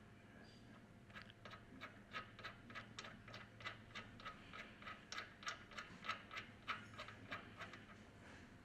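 Ratchet wrench clicking in quick, even strokes, about four clicks a second, as it works the screws holding the pump's shaft seal cover to the casing.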